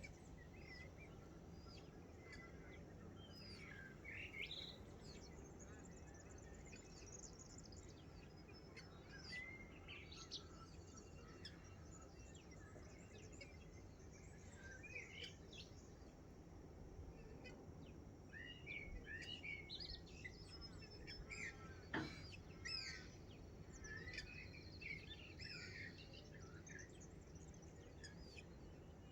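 Faint dawn chorus of several wild birds chirping and calling over a steady low background noise, with one brief sharp tick about three quarters of the way through.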